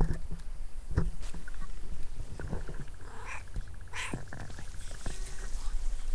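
One-day-old kittens mewing with short, high calls, a couple of them about three and four seconds in, among rustling and small knocks.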